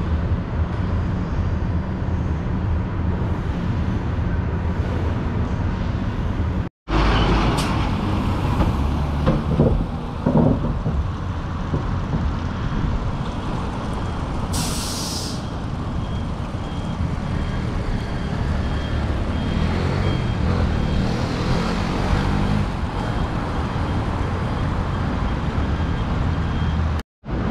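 Road traffic: cars and a truck passing over a steady low rumble, with a short sharp hiss about halfway through. The sound drops out briefly twice, about a quarter of the way in and near the end.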